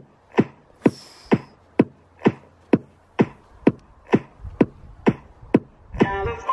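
Electronic dance music with a steady drum-machine beat, about two beats a second. A pitched synth part joins near the end.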